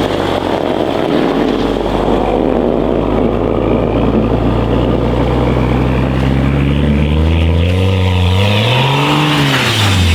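BMW 335i's turbocharged 3.0-litre inline-six running at low revs while driving, with a rushing noise in the first half. The engine note climbs in the second half and revs up and back down once near the end.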